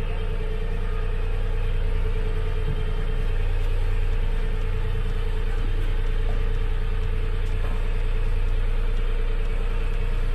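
Boat engine idling: a steady low drone with a constant higher hum above it.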